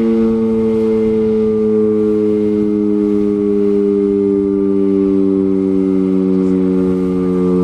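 Electromechanical outdoor warning siren sounding a steady tone, its pitch slowly falling throughout.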